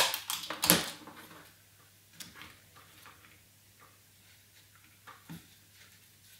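Sellotape pulled from a desk dispenser and torn off in a couple of short sharp rips at the start, followed by faint taps and rustles of cardboard strips being handled and pressed onto a cardboard frame.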